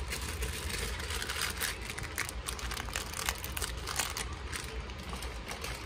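Things being handled by hand on a workbench: irregular crinkly clicks and rustles, with a low steady hum underneath.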